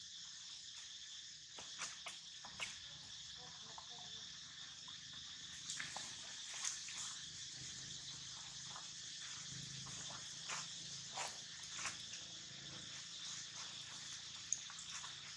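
Steady high-pitched insect chorus, with scattered short clicks and rustles.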